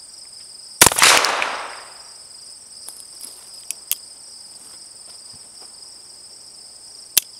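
A black-powder percussion revolver fires one shot about a second in, with a long echoing tail. Faint clicks follow as the hammer is cocked, then near the end a single sharp snap of the hammer falling on a cap without a shot: a misfire. Insects call steadily in the background.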